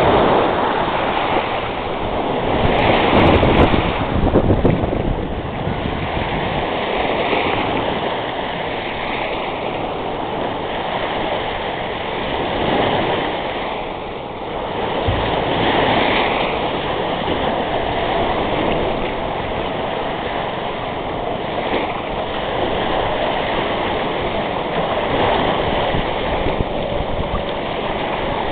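Sea waves washing onto the shore, swelling and easing every few seconds, with wind buffeting the microphone.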